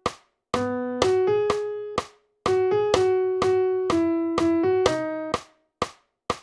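Notation-software playback of a transcribed vocal melody in a keyboard-like tone, one line of held notes, over a metronome clicking about twice a second. The melody rests briefly near the start, around two seconds in, and for about the last second, leaving only the clicks.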